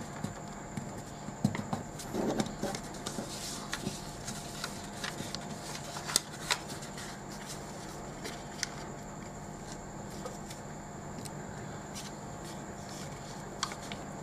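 A sheet of A4 printer paper being folded and its creases pressed down by fingers on a table: scattered soft crinkles, taps and rustles, busiest in the first half, over a steady background hum.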